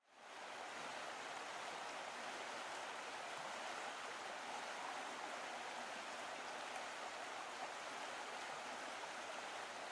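Rushing water of a rocky mountain stream running over boulders: a steady, even hiss that fades in at the start.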